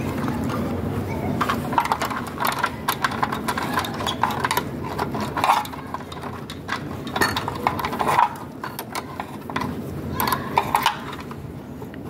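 Metal spanner clinking and scraping against the bolts of a water heater's heating-element flange as the new element is fitted, giving many irregular sharp clicks with a slight metallic ring. A low steady hum underlies the first couple of seconds.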